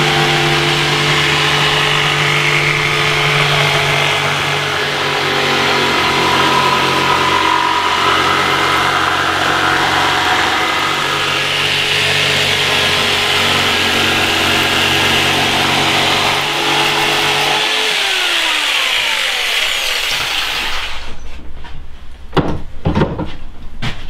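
Electric jigsaw sawing through a wooden board, its motor running at a steady pitch under the rasp of the blade. About 18 seconds in it is switched off and the motor winds down, followed by a few knocks as the board is handled.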